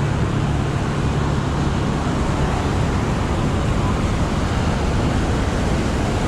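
Steady rush of ocean surf and wind on the microphone, with a low hum underneath that fades out about two seconds in.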